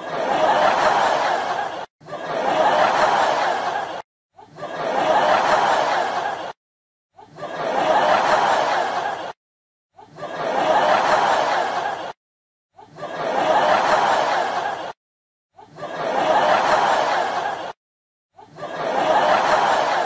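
Canned audience laughter from a laugh track, in eight bursts of about two seconds each, with short gaps of dead silence between them.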